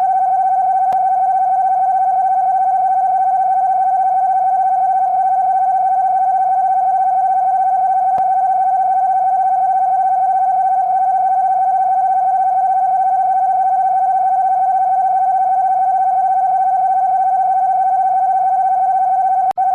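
Emergency Alert System-style alarm: a loud, single steady electronic tone held unchanged for nearly twenty seconds. It breaks off for an instant near the end, then resumes.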